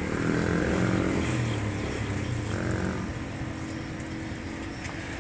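A motorcycle engine passing by, its note bending in pitch as it goes, loudest about a second in and then fading away.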